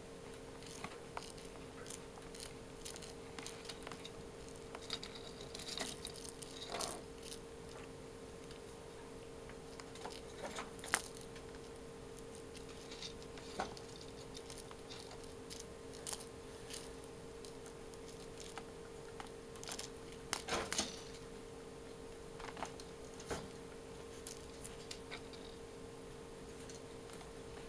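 A kitten playing with a toy mouse: scattered light taps, scuffles and clicks of paws and toy, a few louder knocks among them, over a steady faint hum.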